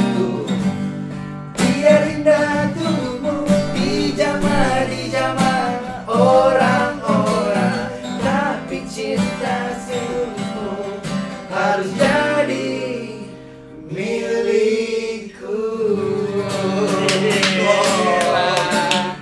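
Steel-string acoustic guitar strummed in chords, with a man singing over it.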